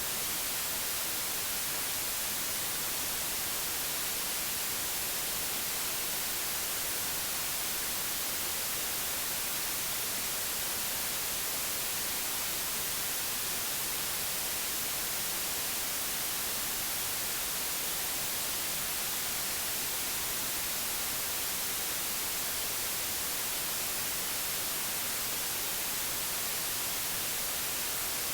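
Television static from a set with no signal: a steady, even hiss, strongest in the treble, with no change in level.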